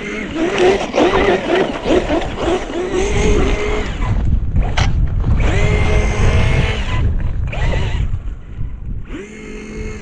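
Electric drive motor and gears of a Kyosho Toyota Tacoma RC truck whining in repeated throttle bursts, the pitch rising and falling with each burst, with pauses in between. Wind rumbles on the microphone underneath.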